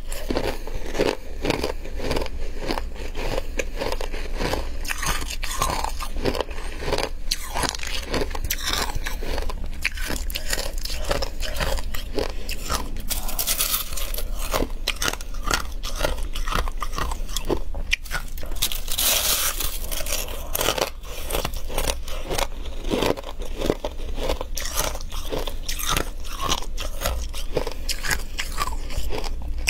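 Close-up biting and chewing of flaky freezer frost: dense, crisp crunching and crackling throughout, with brief bursts of louder bites.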